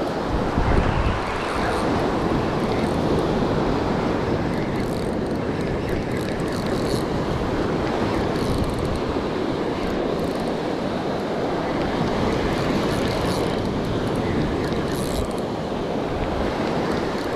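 Surf breaking steadily on a beach, with wind buffeting the microphone, hardest about a second in.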